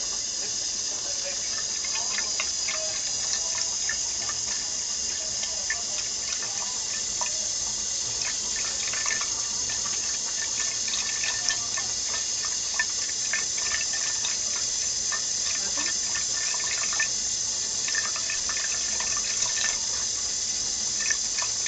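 Thin stream of water running from a kitchen tap into a frying pan in a stainless steel sink, a steady hiss with irregular small splashes and ticks where a cat drinks from the stream.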